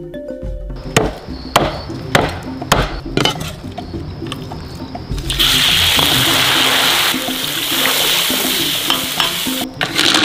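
Chopped chilies, garlic and ginger sizzling loudly in hot oil, starting suddenly about halfway in and breaking off briefly near the end. Before that come a few sharp knocks about half a second apart.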